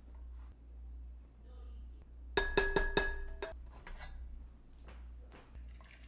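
Silicone spatula knocking against a glass mixing bowl: a quick run of about five ringing clinks about halfway through.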